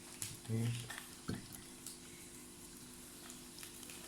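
Mashed ginger being squeezed by hand, soft wet squishing and juice dripping onto a plate, with a couple of light knocks in the first second or so.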